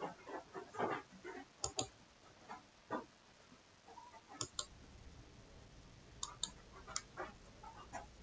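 Computer mouse clicking, several times as quick double clicks, among other short irregular knocks and sounds.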